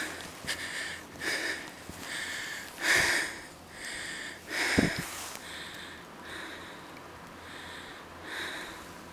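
Heavy, rhythmic breathing of a person trudging through deep snow, short breaths about two a second, out of breath from the effort.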